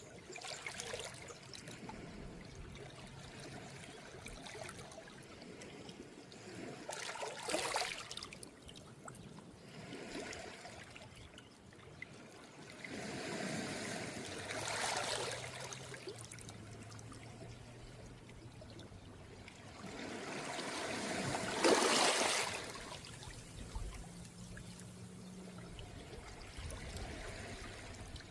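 Calm small waves washing up over a round-pebble beach and draining back through the stones, a soft hiss that swells in several separate washes, the loudest about three quarters of the way in.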